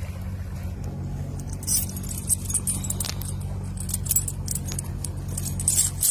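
Heavy rusty iron chain rattling, its links clinking and jangling in a run of sharp metallic clinks from about two seconds in. A steady low hum runs underneath and cuts off abruptly at the end.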